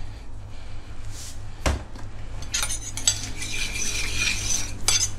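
A metal spoon knocking once against a bowl, then scraping and stirring in it as sugar is mixed into a Thai yum dressing of fish sauce, lime juice and chillies, with a few sharp clinks near the end.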